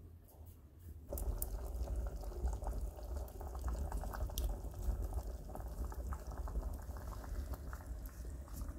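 A pot of liquid at a rolling boil over a wood fire, bubbling steadily with many small pops. It starts suddenly about a second in.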